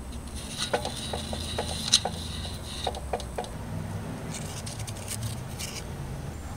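Metal parts being handled: a series of irregular light clicks and taps in the first half, then a faint rattling of thin embossed steel exhaust gaskets near the end. A steady low rumble lies underneath.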